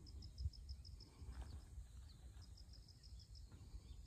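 Faint outdoor ambience: an insect chirping in a steady rhythm of short high pulses, about five a second, over a low rumble.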